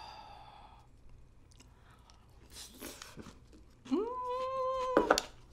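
A woman chewing a mouthful of rice with pickled avocado and jalapeño, then a high, drawn-out vocal sound of enjoyment at the spicy bite, rising and then held for about a second, about four seconds in. A sharp click follows just after it.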